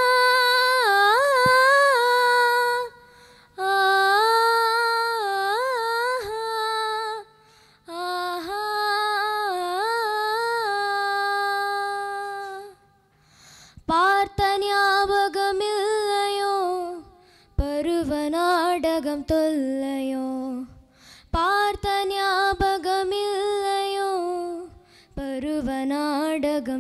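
A young girl singing unaccompanied into a microphone: long sung phrases with wavering pitch ornaments, each lasting a few seconds and separated by short pauses.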